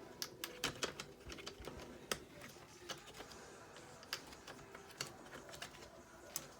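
Plastic snap tabs of a Lenovo IdeaPad 320 laptop's screen bezel being pried apart, giving faint, irregular sharp clicks about once or twice a second.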